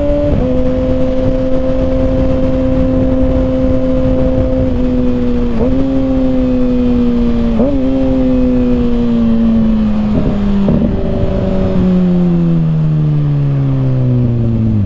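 Kawasaki ZX-6R inline-four running through an M4 slip-on exhaust with its baffle removed, heard from the rider's seat while riding: the engine holds a steady speed, dips briefly twice midway, then winds down steadily over the last few seconds as the bike slows.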